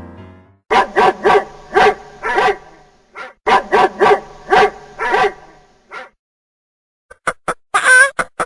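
A dog barking in two quick runs of several short barks each, with one more bark after a pause. Near the end, short sharp calls of another animal begin.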